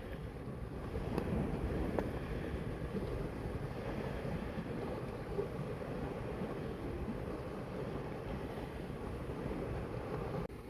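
Sea water washing and lapping, with wind rumbling on the microphone.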